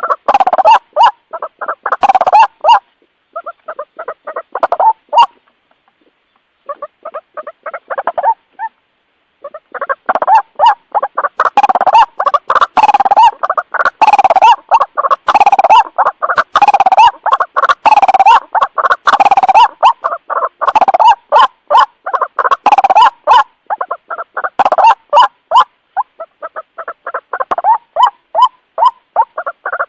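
White-breasted waterhen (ruak-ruak) calling: fast, repeated croaking notes in long runs, broken now and then by short pauses.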